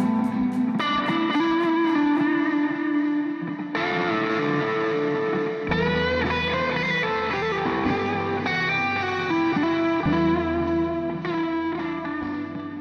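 Background music led by electric guitar with effects, a bass line coming in about six seconds in, fading out at the end.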